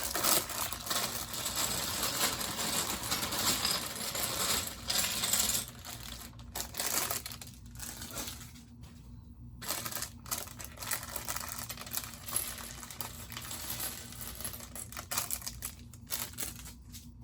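Plastic Lego parts bag crinkling as it is opened and handled for about the first six seconds, then loose Lego pieces clattering and clicking in small scattered bursts.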